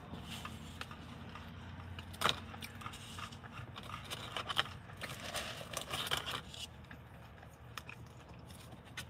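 Paper food wrapper rustling and crinkling in the lap, with a sharp click about two seconds in, and chewing, over a low steady hum of the car cabin.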